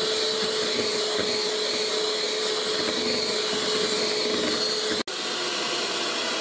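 Electric hand mixer motor running steadily at speed, its beaters whisking a thick mascarpone and egg-yolk cream in a stainless steel bowl, with a brief break about five seconds in.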